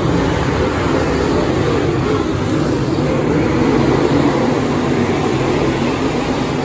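A field of dirt late model race cars' V8 engines running hard together in a continuous dense drone, swelling about four seconds in as cars pass close by.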